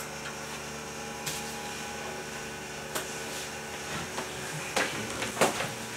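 Steady machine hum of a small office with a computer running, with one sharp click about three seconds in and a few soft knocks and rustles near the end as a person moves at the desk.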